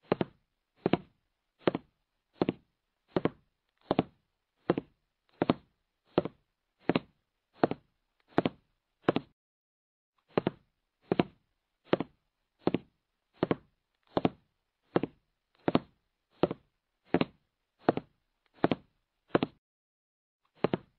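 A ticking countdown-timer sound effect: short, knock-like ticks at a steady pace of about one every three-quarters of a second, with one skipped beat a little before the halfway point. It counts down the answering time for a quiz question.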